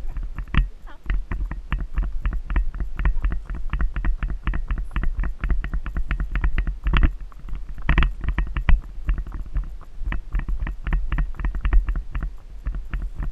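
Rapid, even knocking, about five or six beats a second, in time with the gait of a ridden Icelandic horse on a dirt trail. A steady low wind rumble sits on the microphone underneath.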